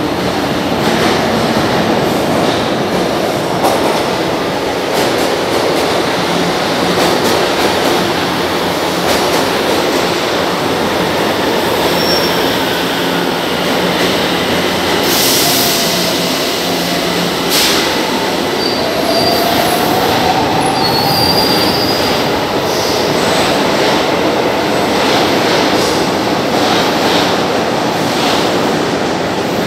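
São Paulo Metro Line 1 train running into the underground station and along the platform: a steady loud rumble of steel wheels on rail with repeated clicks. Brief high wheel squeals come in the middle.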